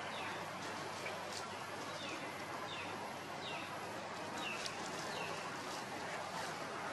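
Short, high cries from a small animal, each sliding down in pitch, repeating about once or twice a second over a steady background hiss.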